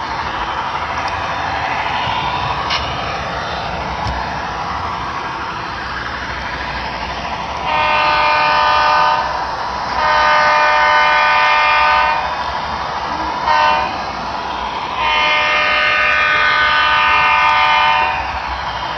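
Model diesel locomotive's multi-tone horn blowing the grade-crossing signal: two long blasts, a short one, then a final long blast, over the locomotive's steady running sound. It is the standard warning for a road crossing ahead.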